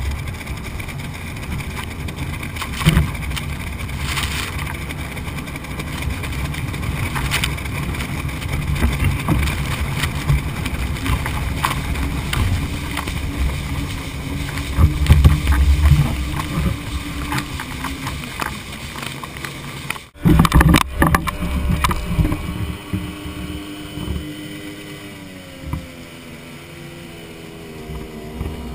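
Flat-bottom boat running fast under outboard power, heard close to the hull at the waterline: rushing water and spray against the hull over the motor's drone. About two-thirds of the way in the sound cuts, and after that the outboard's pitch is plainer, wavering up and down.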